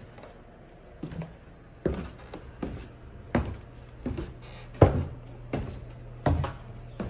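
Footsteps of a person walking indoors, a regular series of thuds about one every three-quarters of a second, over a low steady hum.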